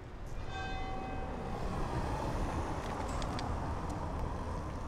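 Steady street noise with a low traffic rumble. A short high pitched tone sounds near the start, and a few light clicks come around three seconds in.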